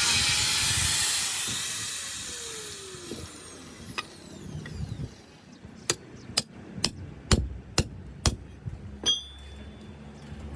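Hard knocks of a tool on a building site: six sharp strikes about half a second apart, then a metallic clink with a short ring. Before them, a hiss fades away over the first few seconds.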